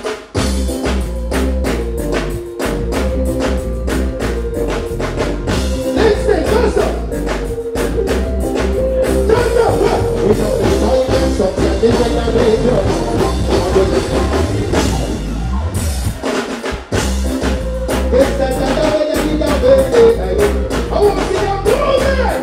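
Live band music with the drum kit keeping a steady beat under sustained keyboard and guitar lines.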